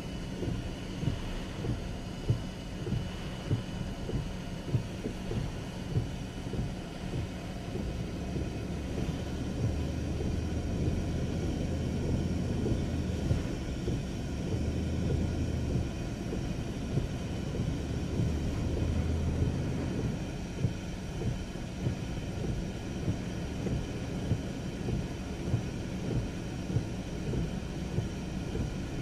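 Low rumble inside a car driving through hurricane wind and heavy rain, with frequent short, irregular thumps; the rumble swells from about a third of the way in to about two thirds through.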